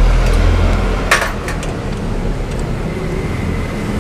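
Hand tools working the 10 mm bolts of a scooter's VVA solenoid, with one sharp metal clink about a second in and a few lighter ticks, over a steady low rumble.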